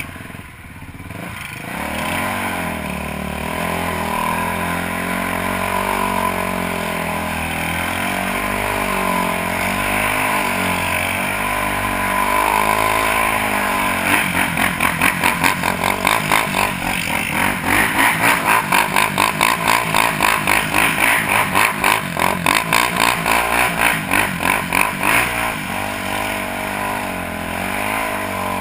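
Quad ATV engines running and revving at low speed, the nearest being the rider's own machine. About halfway through, the sound turns into a fast, even pulsing, several beats a second, for about ten seconds before easing off.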